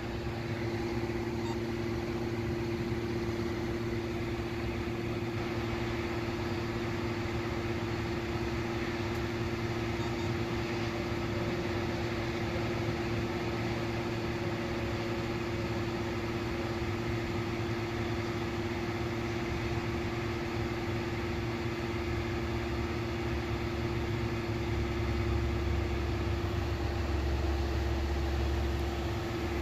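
Steady mechanical hum at one constant pitch, like an idling engine. A deeper low rumble grows stronger about 25 seconds in.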